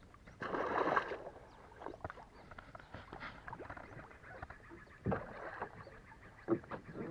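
A lure cast on a baitcasting reel: the line whirs off the spool for under a second about half a second in, then the reel is wound in with small clicks. Two dull knocks come about five and six and a half seconds in.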